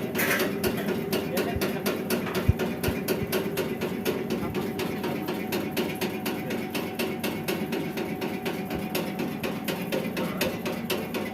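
Flour sifting machine running: a steady hum under a fast, even clatter of about five knocks a second.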